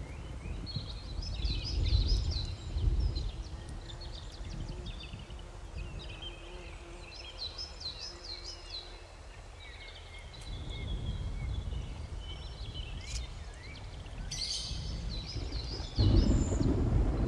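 Several small birds chirping and singing, in short repeated chirps and quick gliding calls, over a low outdoor rumble that grows suddenly louder near the end.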